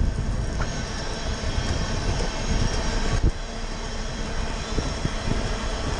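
Wind rushing over the microphone of a camera mounted on a loping horse, with a freight train running on nearby tracks.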